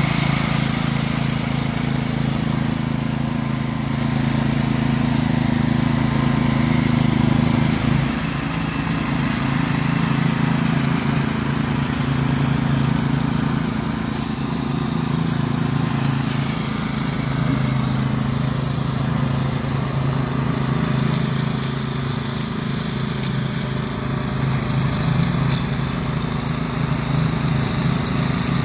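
Cub Cadet CC30H rear-engine riding mower running steadily as it drives across the lawn, cutting and bagging fallen leaves.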